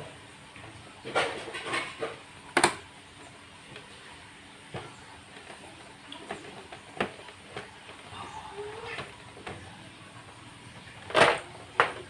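Irregular clicks, knocks and rattles of cable connectors being unplugged and the housing handled inside an all-in-one PC, with the loudest knocks a few seconds in and again near the end.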